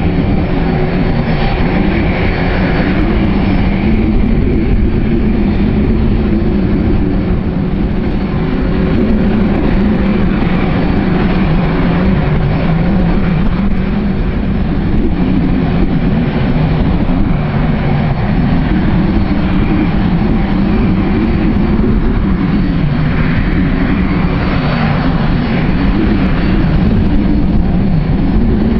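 Jet airliner engines running, loud and steady, mostly a low rumble with a faint steady hum above it.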